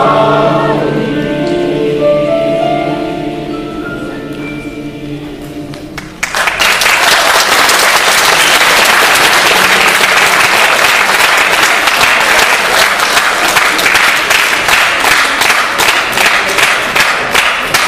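A choir with piano holds the final chord of a song, which fades away. About six seconds in, audience applause breaks out suddenly and carries on.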